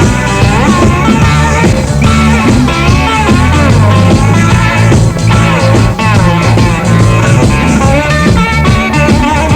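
Blues-rock record playing loud: an electric guitar lead with bending, sliding notes over bass and drums.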